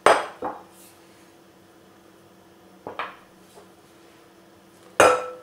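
Four sharp knocks and clinks of kitchen utensils against a glass mixing bowl: one at the start, a smaller one just after, one about three seconds in, and a loud one near the end that rings briefly.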